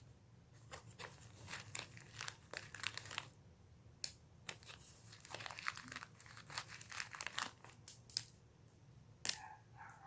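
Handmade clear slime being squeezed and pressed by hand, giving two long runs of crackling, popping clicks with a few single sharp pops between.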